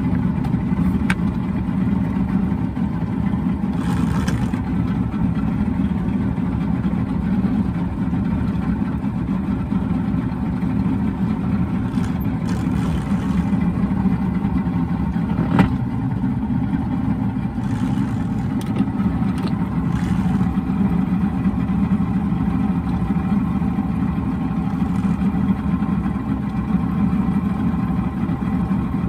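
Boston Whaler Outrage's outboard engine running steadily, with a single sharp knock about halfway through.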